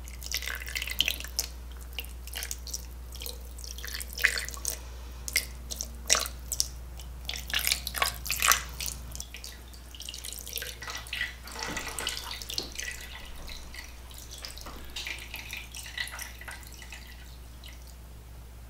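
Chicken broth poured in a thin stream from a glass measuring cup into a ceramic slow-cooker crock, splashing and dripping onto the chicken in an irregular patter that grows fainter over the second half.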